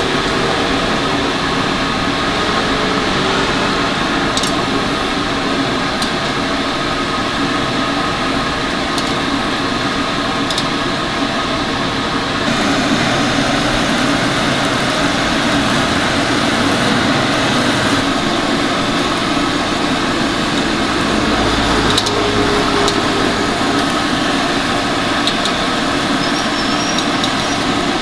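A steady mechanical whir with a few light clicks.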